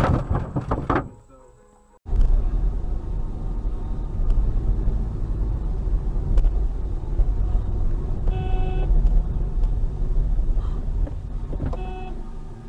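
Steady low road and engine rumble heard inside a moving car on a highway. A short horn-like note sounds about two-thirds of the way through, and a weaker one near the end. Before that, a loud noisy sound in the first second fades away and is cut off.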